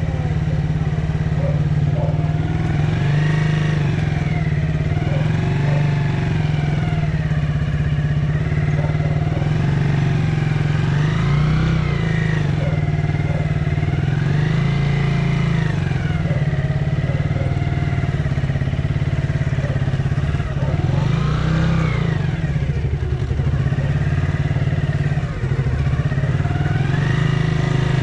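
Small motorcycle engine running steadily as the bike is ridden, its note rising and falling every few seconds with the throttle.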